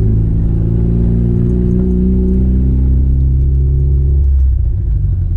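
Turbocharged Acura RSX four-cylinder engine running at low revs while driving slowly. The pitch rises slightly just after the start, and the higher tones drop away about four seconds in as the revs fall.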